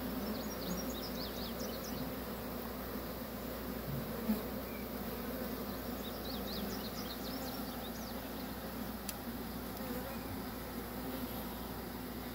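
A swarm of honeybees buzzing as a steady drone, many bees in flight around a hive where the swarm is clustered and moving in.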